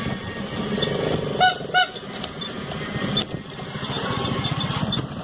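Two short blasts of a vehicle horn, about a third of a second apart, a second and a half in, over the steady running of a vehicle engine in traffic.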